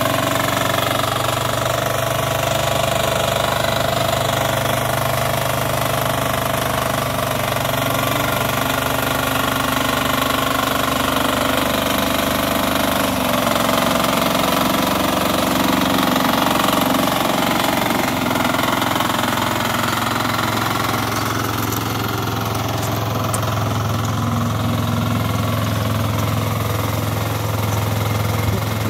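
Small red single-cylinder air-cooled diesel engine of a homemade 4x4 tractor running steadily.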